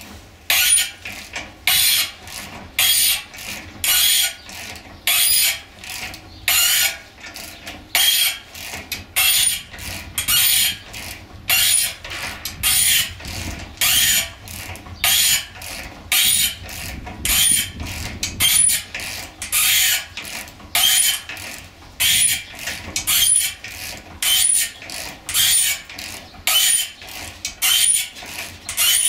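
Socket ratchet wrench clicking in short bursts, about once a second, as it is worked back and forth on a blower motor shaft that is frozen in the squirrel-cage wheel's hub.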